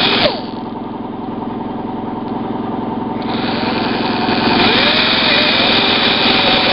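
Small high-speed handheld power tool running as it cuts down a plastic tab on a trim panel, its pitch dipping and rising as it bites into the plastic.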